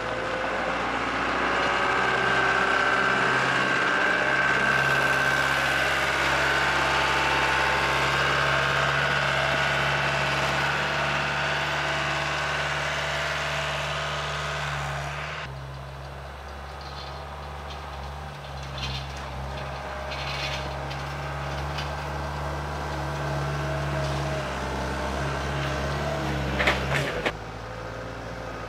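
Cat skid-steer loader's diesel engine running as the machine drives under load, with a steady higher whine over the engine note. The sound changes suddenly about halfway through, and a few sharp metal clanks come near the end.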